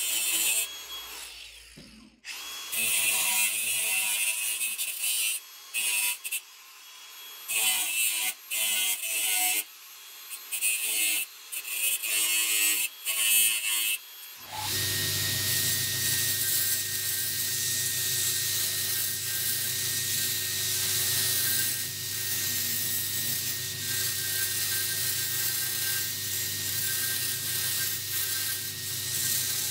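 Angle grinder with a thin cut-off disc cutting into a steel saw blade in short bursts, the disc running up and dropping off between cuts. About halfway the sound changes to a belt grinder running steadily while the blade's profile is ground against the abrasive belt.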